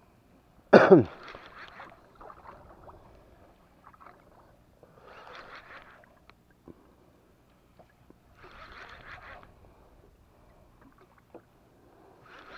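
Water lapping against the hull of a small boat on open sea, with a short, loud cry about a second in that falls steeply in pitch.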